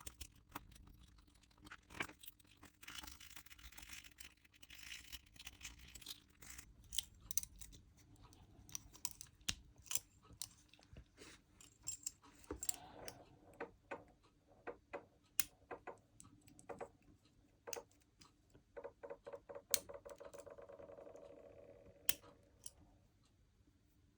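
Small metallic clicks, scrapes and rattles of a GEBA Euro lock cylinder being picked open with a Lishi tool and handled, with a run of rapid ticking near the end.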